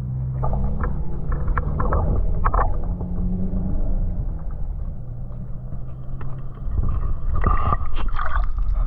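Muffled water sound picked up by a camera held under the water: gurgling and sloshing over a steady low hum, with splashing that grows louder near the end as a released black bream kicks away at the surface.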